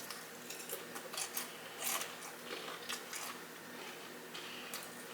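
Close-miked chewing of a sauce-dipped fried chicken tender with crispy skin, giving irregular soft crunches.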